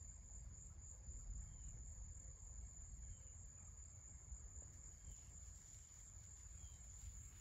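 Faint, steady high-pitched trill of insects singing in summer grass and woods, with short faint chirps repeating about every second and a half over a low steady rumble.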